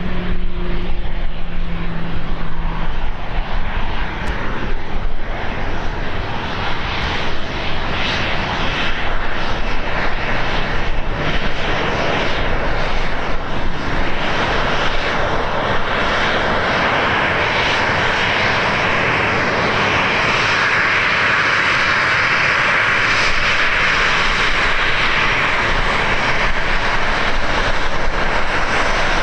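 Airliner engines close by, growing from a gusty, uneven rush into a steady loud roar from about halfway through, with wind buffeting the microphone.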